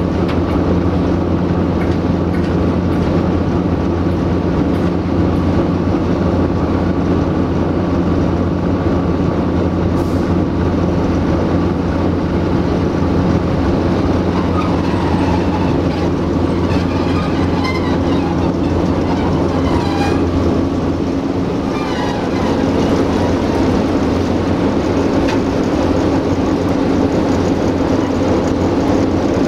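Diesel engines of two Romanian CFR Class 60 (Electroputere LDE2100 / 060-DA) diesel-electric locomotives running with a steady deep hum as the pair pull slowly into the station. A few high squeals from the running gear come partway through, and the engine note dips briefly near the end.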